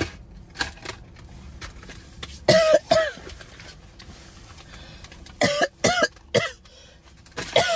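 A woman coughing in short, loud bursts: two coughs about two and a half seconds in, three more a few seconds later, and another starting at the very end.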